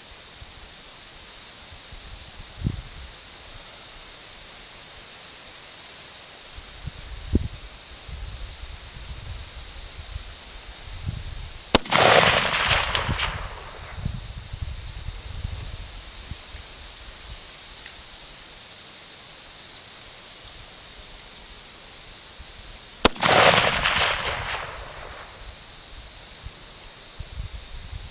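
Two AR-10 rifle shots about eleven seconds apart, each a sharp crack followed by a rolling echo lasting about a second and a half. Insects trill steadily underneath.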